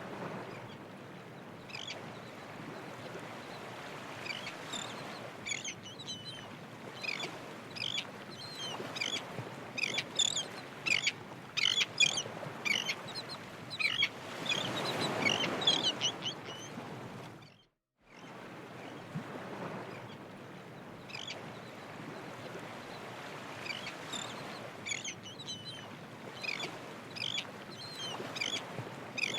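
Birds calling in rapid short chirps over a steady rushing background. The sound drops out briefly about two-thirds of the way through, then picks up again.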